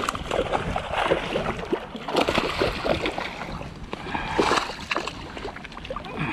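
Water splashing and sloshing in irregular surges with sharp knocks and rustles, as a hooked largemouth bass thrashes at the surface while being played in.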